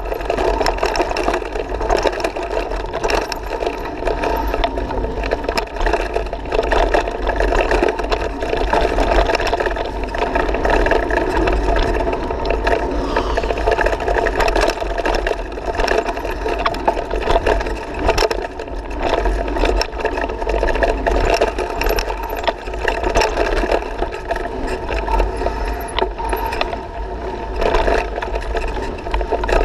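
Mountain bike riding fast down a dirt singletrack: tyres rumbling over the ground, with constant rattling and knocking from the bike and the camera mount over roots and bumps, and wind rumbling on the microphone.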